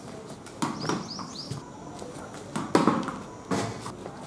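Sharp knocks of a tennis ball bouncing on concrete and meeting a cricket bat, one a little under a second in and a close pair near three seconds. A small bird chirps three times about a second in.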